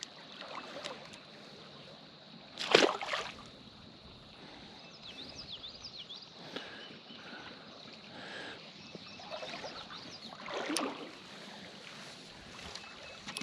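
Shallow creek water splashing, with two louder splashes, one about three seconds in and one near the end, over the steady sound of the creek.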